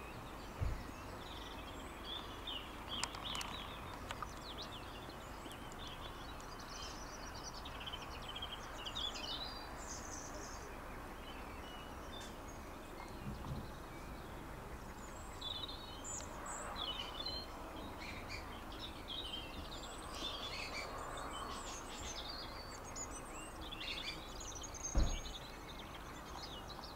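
Several songbirds chirping and trilling on and off over a steady outdoor hiss, with a few short low thumps, the loudest one near the end.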